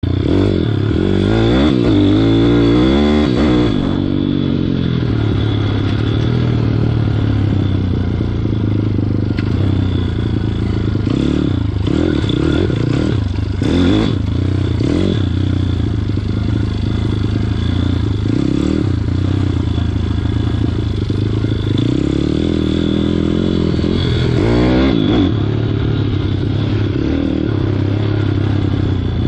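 Welsh Pit Bike 160's single-cylinder four-stroke engine, breathing through a bigger 28 mm carburettor, running under load while ridden on a dirt trail. Its note rises and falls as the throttle is worked about one to four seconds in and again near the end, holding steadier in between, with some clattering around the middle.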